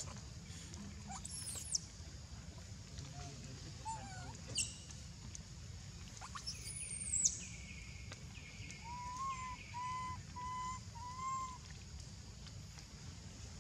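High animal calls: several sharp squeaks that fall quickly in pitch, the longest a little past the middle, then a run of four short, even whistled notes toward the end. A steady low rumble runs underneath.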